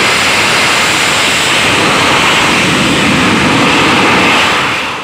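Bang fai rocket motor firing at launch: a loud, steady rushing noise of burning black-powder propellant that drops away sharply at the very end.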